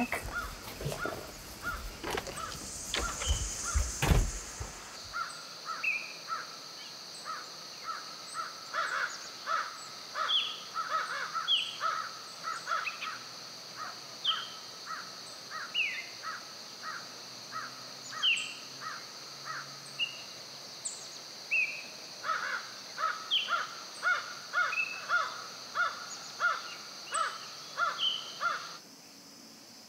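Crows cawing again and again among other chirping birds, over a steady high hiss; the birdsong cuts off abruptly near the end. A few knocks and rustles sound in the first four seconds.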